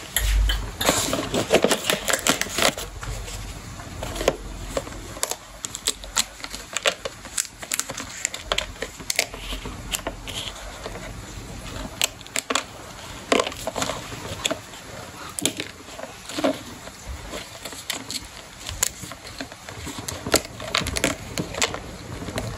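Sweet tamarind pods being handled and cracked open: many small, irregular cracks and crackles as the brittle shells break, with a low thump near the start.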